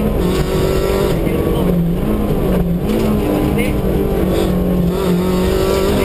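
MG ZR 105 rally car's four-cylinder engine heard from inside the cabin, driven hard along a stage over steady road and tyre noise. The engine note steps down and climbs again several times as the car shifts and comes on and off the throttle.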